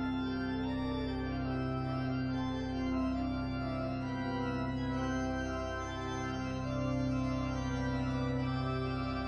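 Organ playing slow, sustained chords over a held low note, the chords changing about every three seconds.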